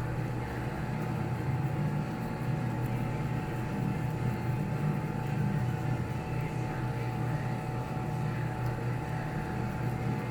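Steady machine hum: a low drone with a constant thin whine above it, unchanging throughout.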